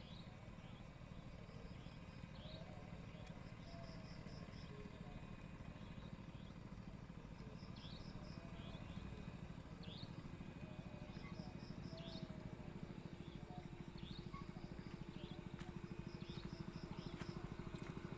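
Night-time insects, cricket-like, give short high pulsed trills every few seconds, with scattered short chirps, over a faint steady low rumble. A low steady hum comes in and grows louder over the last few seconds.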